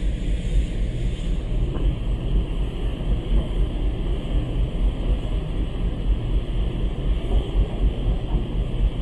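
Wind buffeting the microphone on a ferry's open deck, over the steady rumble and rush of the ship under way and its wake.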